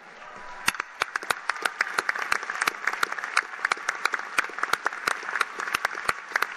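Large crowd applauding. The clapping starts about half a second in and swells over the next second, then goes on steadily, with some single claps standing out sharply.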